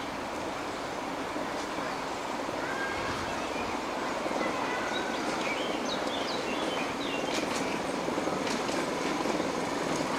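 Miniature railway train, a small locomotive pulling passenger carriages, running along the track with a steady rumble that slowly grows louder as it approaches. Birds chirp in the middle, and a few sharp clicks come near the end.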